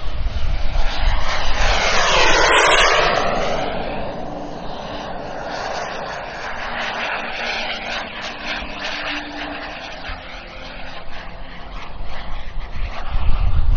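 Radio-controlled BAE Hawk model jet flying past: a rushing jet engine noise that swells to its loudest about two seconds in, with a sweeping, phasing tone as it passes, then eases to a steadier, more distant sound before growing louder again near the end.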